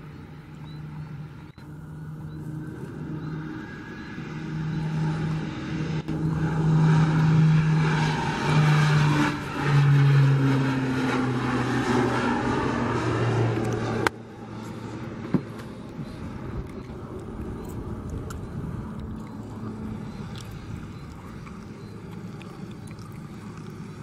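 Twin-engine turboprop plane taking off at full power, growing louder as it rolls past, with the propeller tone dropping in pitch as it goes by. About two-thirds through the sound cuts off abruptly and gives way to a fainter, steady drone of the plane climbing away.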